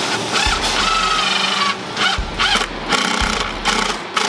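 Makita 18-volt cordless impact driver driving screws into a wooden drawer side, run in a series of short stop-start bursts with a whining note.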